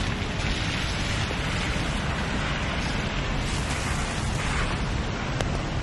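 Steady rain and the swish of car tyres on a wet street, over a low rumble of passing traffic.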